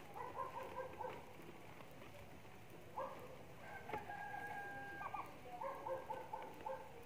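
A rooster crowing: short calls near the start and near the end, and a longer crow with a held note in the middle.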